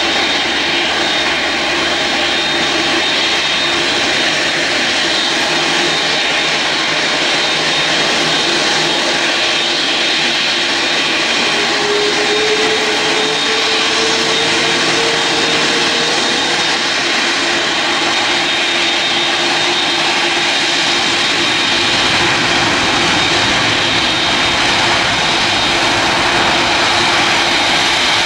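Twin jet engines of a Boeing 777 at high thrust on the takeoff roll: a loud, steady roar with a thin high whine over it. A tone rises briefly around the middle, and a deeper rumble builds in the last several seconds as the jet comes closer.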